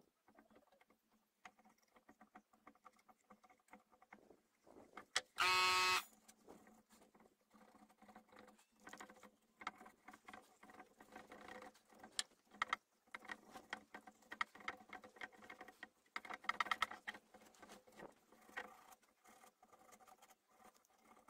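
Close handling sounds of restoration work on a carved wooden piece: small scrapes, taps and rustles of hands, cloth and a spatula working wood filler into the carving. About five seconds in there is a short, loud buzzing squeak.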